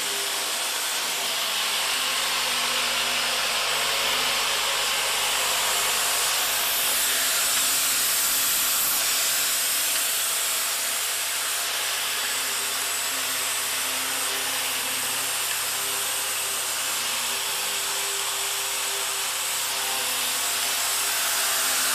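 Steady machine noise: a continuous hiss over a constant low hum, typical of automated industrial machinery running.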